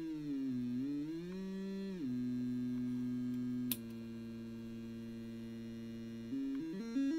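Synthesizer oscillator tone whose pitch is controlled through a dual quantizer module. The pitch glides smoothly for about two seconds, then holds one steady note. A sharp click comes a little past the middle and the tone changes. Near the end the pitch jumps up and down in separate steps, snapped to the notes of a scale.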